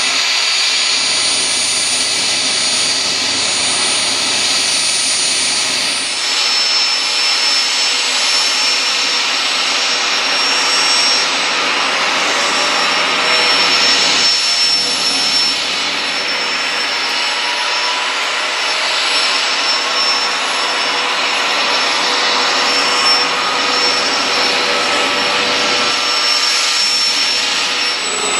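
Aérospatiale Gazelle helicopter running on the ground with its rotor turning: the steady whine and rush of its Turbomeca Astazou turboshaft and fenestron tail rotor, with a higher whining tone joining about six seconds in.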